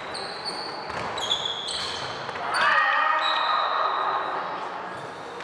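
Indoor tchoukball play on a hard sports-hall floor: athletic shoes squeaking in many short high chirps, with a few ball or footfall thuds. About halfway through, a loud voiced shout rises over the play and holds for over a second before fading.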